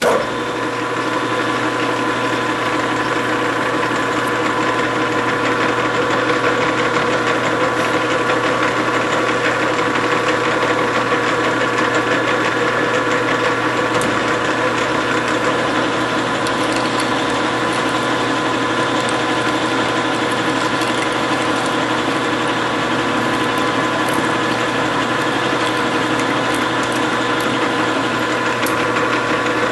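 Grizzly G4003 metal lathe running under power for a threading pass: a steady whir from its motor and gear train, with a constant hum. It starts abruptly and holds even throughout.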